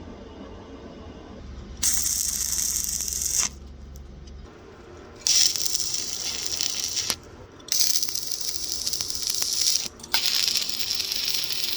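Power drill driving screws to mount drawer slides: four runs of one to two seconds each with a rattling whirr, separated by short pauses.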